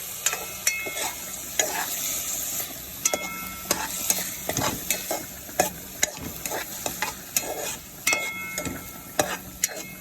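Onions, garlic and bell peppers sizzling in hot oil in a pan while being stirred, with a steady sizzle and frequent clicks and taps of the utensil against the pan, some of them ringing briefly.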